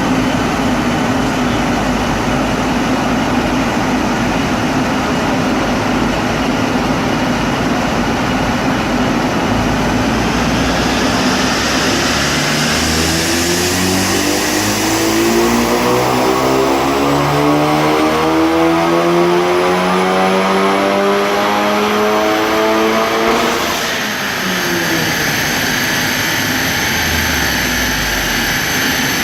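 Tuned Audi S1 turbocharged four-cylinder engine making a full-throttle power run on a rolling road. Over a loud steady rush, the engine note climbs steadily for about twelve seconds from roughly ten seconds in, with a high thin whine rising alongside. It then cuts off as the throttle is lifted, and the revs fall away.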